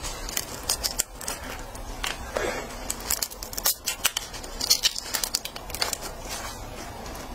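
Shell of a raw red shrimp being cracked and peeled by gloved hands: an irregular run of small sharp cracks and crackles, with the plastic gloves crinkling.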